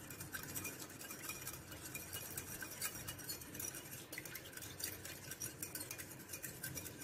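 A plastic spoon stirring a small glass bowl of papad khar, oil and water, clicking lightly and rapidly against the glass.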